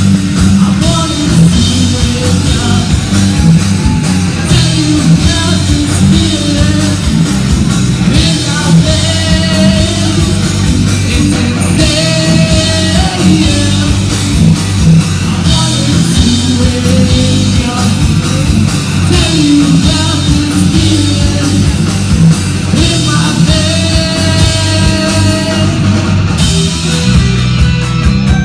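Live rock band playing loud: distorted electric guitars, bass and drum kit, with a singer's vocal line over them. The cymbals drop out near the end.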